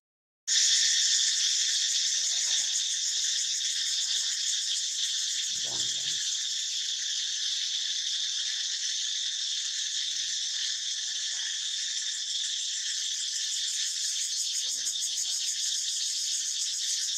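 Steady high-pitched insect chorus, a dense buzzing trill. It starts after a half-second dropout at the very beginning.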